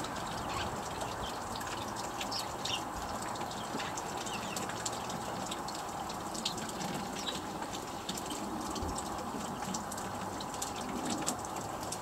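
Small songbirds giving short, scattered chirps and calls at a feeder, over a steady rushing background noise.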